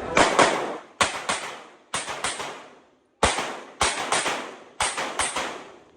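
Handgun shots fired in quick pairs and triples, about one cluster a second with a short pause near the middle, each shot ringing out briefly after it. This is a competitor shooting through targets on a practical-pistol stage.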